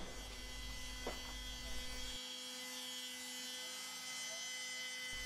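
Faint steady hum made of several fixed tones.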